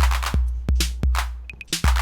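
Roland TR-08 drum machine playing a steady pattern: the 808-style bass drum booms with a long low decay on the beats, and noisy hand claps and sharp percussion hits fall between them.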